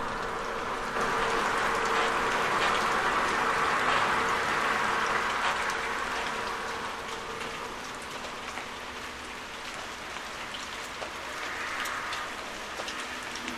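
Rain-like hiss with scattered small crackles, with faint held tones underneath, as part of an experimental ambient soundscape. It swells about a second in and thins out again after the middle.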